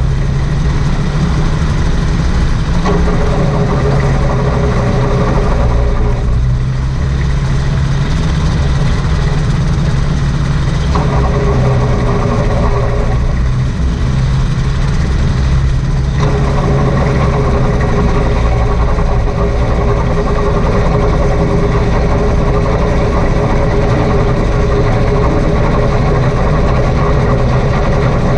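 Rotax 582 two-stroke twin engine of a homebuilt float gyroplane running steadily as the craft taxis on the water, its tone shifting a few times.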